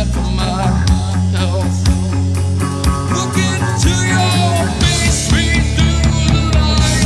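Sludge metal played by a band on guitars, bass and drums, loud and steady, with regular drum hits.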